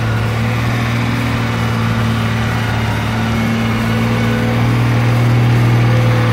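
Nissan Safari 4WD winching itself up a muddy slope: a steady, unchanging drone from the front winch and engine working under load.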